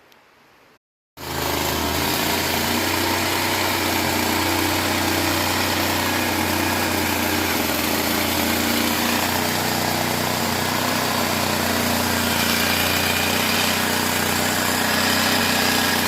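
Small engine of the HD 45 machine running steadily at a constant speed after repair, cutting in abruptly about a second in.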